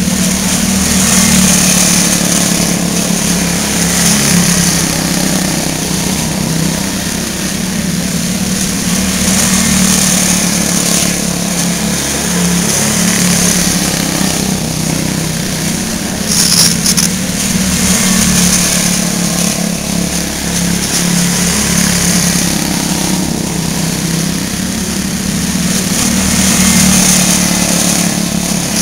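Small single-cylinder quarter midget race car engines running laps, a steady drone that swells and fades slightly as the cars circle the oval.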